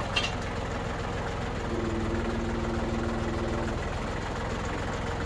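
Loader tractor's engine idling steadily, with a short click just after the start and a steady tone held for about two seconds in the middle.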